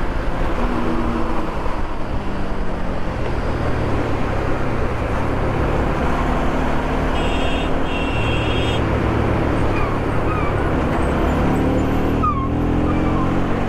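Bajaj Pulsar RS200's single-cylinder engine, breathing through a K&N air filter, running steadily while its pitch steps and glides up and down with engine speed. Two short high beeps come a little past halfway.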